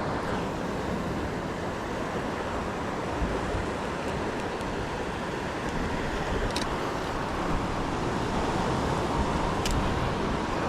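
Steady wash of surf on the shoreline with wind on the microphone, and two faint clicks about six and a half and nine and a half seconds in.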